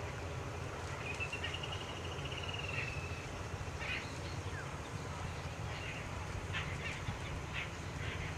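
Small birds calling: a rapid trill of about two seconds starts a second in, followed by several short chirps. A steady low rumble runs underneath.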